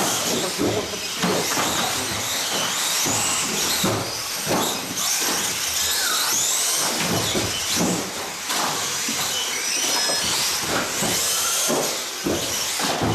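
Small 1/18-scale electric off-road RC cars racing on a carpet track, their motors whining up and down in pitch over a steady hiss, with people chattering.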